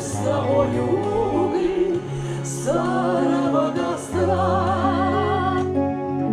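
Music: the closing bars of a song, with singing voices holding long wavering notes over sustained chords.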